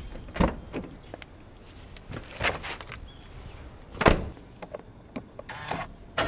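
Scattered clunks and knocks of a car door and someone moving about the car, the clearest about half a second, two and a half and four seconds in, with a brief rustle near the end.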